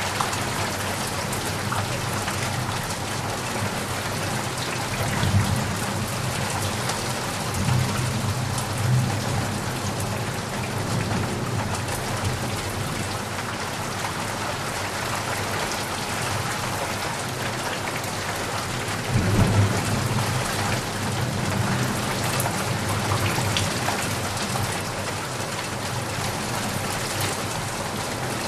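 Heavy rain falling steadily, with low thunder rumbles swelling about five seconds in, again around eight to nine seconds, and most strongly around twenty seconds.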